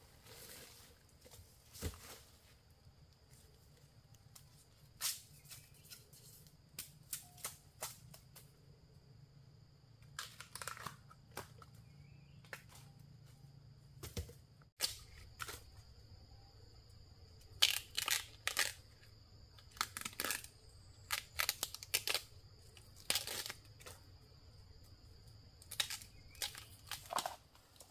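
Short, irregular rustling and tearing-like scraping noises, coming more often in the second half, over a faint steady low hum and a thin steady high tone.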